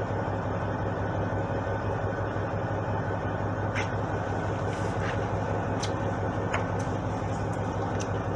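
Fishing boat's engine running steadily with a constant hum, with a few light clicks scattered through the second half.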